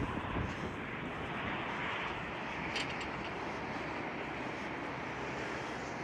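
Strong wind blowing steadily in a continuous roar, gusting hard against the microphone in the first half-second. A faint click about three seconds in.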